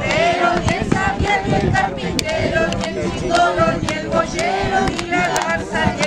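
A group of children and adults singing a song in Spanish together, accompanied by a strummed acoustic guitar.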